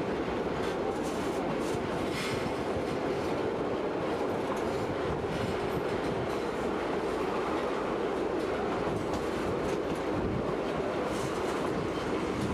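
White Pass & Yukon Route narrow-gauge train running steadily, heard from aboard a passenger car: a continuous rumble of wheels on rail with scattered faint clicks.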